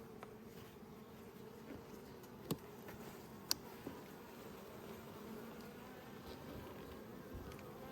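Honeybees from an opened hive humming faintly and steadily; the colony is a calm, quiet one. Two brief clicks sound a couple of seconds in, a second apart.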